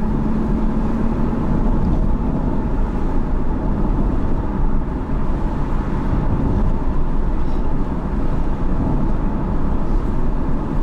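Car driving along a paved road: a steady rumble of tyres and engine, with a low hum that fades out about a second and a half in.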